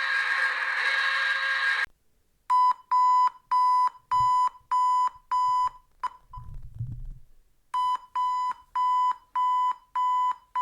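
Electronic alarm sounds: a harsh, buzzy steady tone that cuts off about two seconds in, then an alarm beeping at one pitch about twice a second. The beeping pauses for about a second and a half midway, with a brief low rumble, then resumes.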